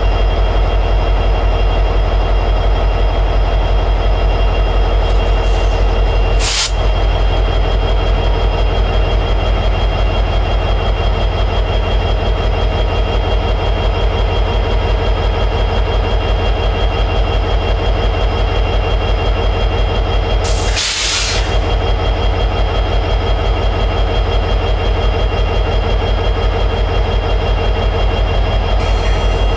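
EMD 710G3B diesel prime mover of an SD60-series locomotive running steadily in high idle, a loud even rumble with a steady whine over it. A short burst of hiss cuts in twice, briefly about six seconds in and for about a second around twenty-one seconds in.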